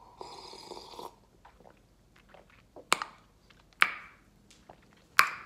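Coffee slurped from a mug for about a second, then three sharp clicks spaced about a second apart, the last two the loudest.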